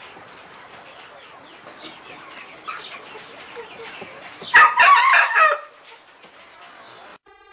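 Aussie Game rooster crowing once, loud and about a second long, a little past the middle, after a few softer short calls. A steady tone starts just before the end.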